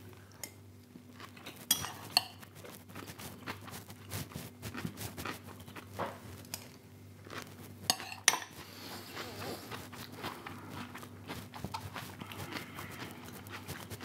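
Metal fork clinking against a ceramic bowl, in two pairs of sharp clinks about two seconds in and about eight seconds in, with quieter scraping and mouth sounds of chewing in between.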